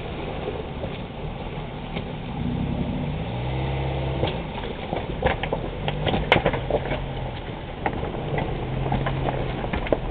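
Suzuki Vitara's engine running and revving as it wades through a muddy river ford and climbs out onto the stony bank. From about four seconds in, a run of sharp clicks and knocks as the tyres go over the rocks, the loudest about six seconds in.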